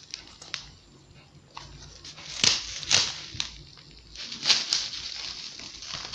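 Large plastic bottle packed with frozen flaky ice crackling and crinkling as it is gripped and turned in the hands: several sharp crackles, the loudest about two and a half, three and four and a half seconds in.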